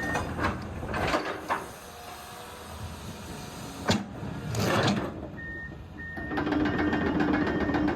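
Komatsu PC210-10 hydraulic excavator working: machinery running with clanks and knocks, and short high beeps at intervals. The running sound grows steadier and louder about two-thirds of the way in.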